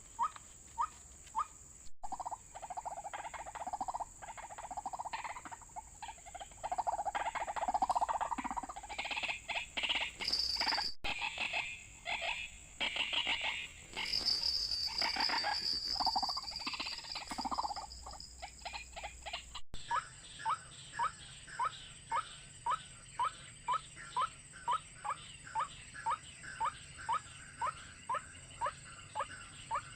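White-breasted waterhen calling: a long run of short single notes repeated about two to three times a second, with a stretch of louder, busier calling in the middle.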